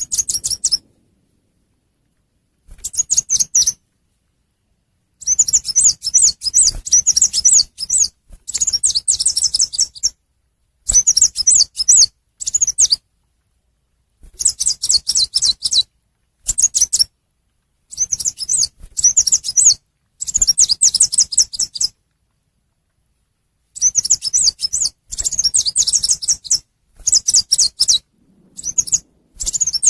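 A small songbird, the chim sâu xanh, giving fast, high twittering chirp phrases about a second or two long, repeated again and again with short silent gaps between them, as a looped lure call for attracting wild birds.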